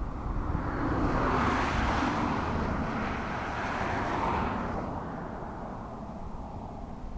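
A vehicle passing by: a rushing road noise swells up about a second in and fades away after about five seconds, over a steady low rumble of wind on the microphone.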